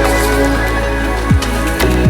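Background electronic music: sustained synth chords over a beat of deep drum hits that drop quickly in pitch.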